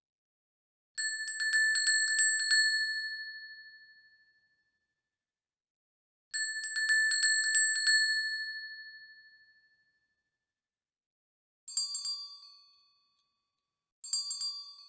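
Small bells rung in four bursts, each a quick run of strikes that rings out and fades. The first two bursts ring longer and share one bright pitch. The last two, near the end, are shorter and come from a differently pitched bell.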